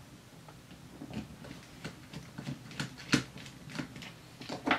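Irregular small clicks and taps of small plastic and carbon-fibre drone frame parts being handled and fitted together while a screw is started with a small screwdriver. Two sharper clicks stand out, about three seconds in and near the end.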